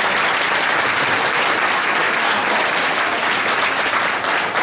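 Theatre audience applauding, a steady, unbroken clapping throughout.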